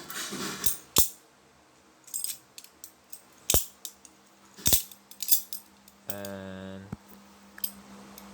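Balisong (butterfly knife) being flipped open and shut: its metal handles jangle and clack, with three loud sharp clacks in the first five seconds among lighter clicks.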